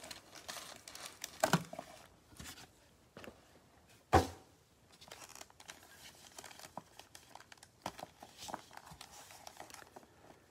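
Crinkling and rustling of plastic wrap and foil Panini Prizm card packs being handled and stacked, with many small crackles and one sharp knock about four seconds in.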